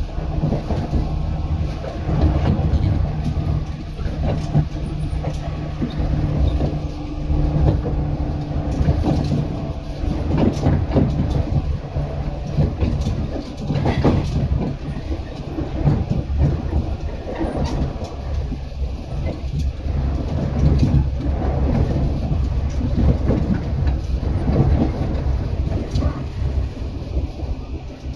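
JR 115-series electric multiple unit running along the line: a continuous rumble of wheels on rail over a steady low hum, with scattered sharp clicks from the track.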